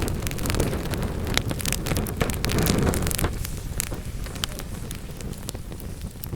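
Wood fire burning in a fireplace: a low steady rumble of flame with frequent sharp crackles and pops from the burning wood, the rumble easing a little about three seconds in.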